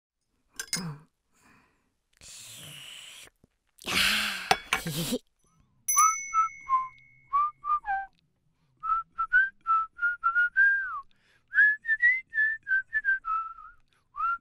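A whistled theme tune of short, bouncy notes that slide slightly in pitch, starting right after a bright bell-like ding about six seconds in. A few brief noisy sound effects come before it, the loudest a hissing burst about four seconds in.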